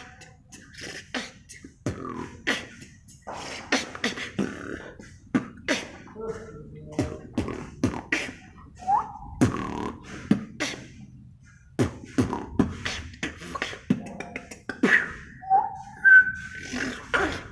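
A man beatboxing: a fast run of mouth pops, clicks and hisses, with a few short pitched notes in the middle and near the end.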